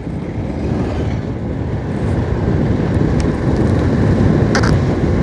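Motorcycle riding along a rough road, its engine running under wind and road noise that slowly grows louder. A couple of brief knocks come about three seconds in and again a second and a half later.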